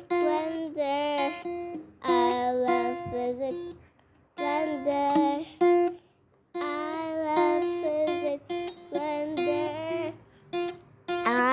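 Intro song: a high voice singing a melody over acoustic guitar strumming, in short phrases with brief pauses.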